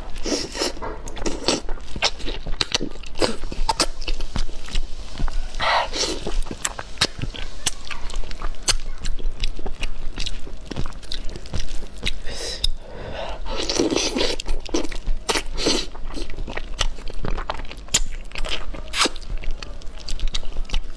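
Close-miked chewing and biting of braised fish: wet, smacking mouth sounds with many small sharp crunches and clicks, going on irregularly without a break.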